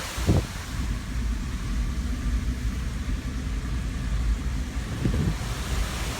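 A car engine running steadily at idle, a low even hum, with gusts of wind buffeting the microphone about a second in and near the end.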